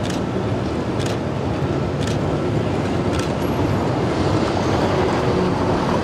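Historic two-car tram running over street track through a curve, amid steady road-traffic noise, with a short sharp tick about once a second. A truck draws close near the end.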